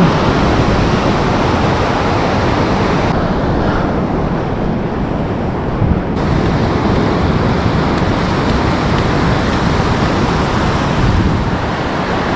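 Ocean surf washing steadily onto a sandy beach, a continuous even rush of breaking waves.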